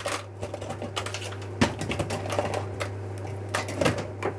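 Irregular clicks and light taps of small hard objects being handled and set down on a work surface, over a steady low hum.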